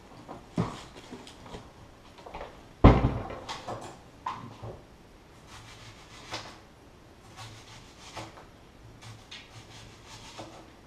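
Chef's knife cutting an onion on a cutting board: scattered knocks and taps of the blade meeting the board, with one heavy thump about three seconds in.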